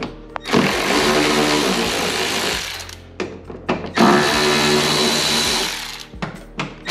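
Milwaukee cordless ratchet with a 10 mm socket running in two bursts of about two seconds each, backing out the bolts that hold the inner fender liner. A few short clicks near the end.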